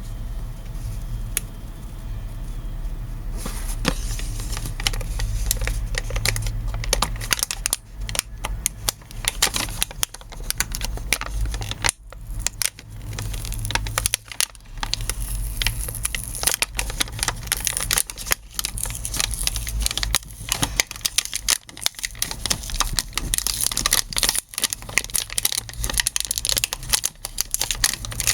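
Packaging crinkling and tearing in a long run of crackles and sharp clicks, as the toy top is unpacked by hand. It starts a few seconds in, after a low steady hum.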